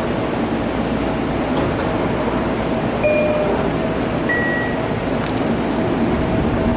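Long Island Rail Road train running on the rails with a steady rumble, with brief high wheel squeals about three seconds in and again a second or so later.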